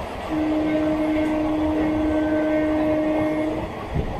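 A train horn sounds one long steady blast of about three and a half seconds, over the constant rumble of rail noise.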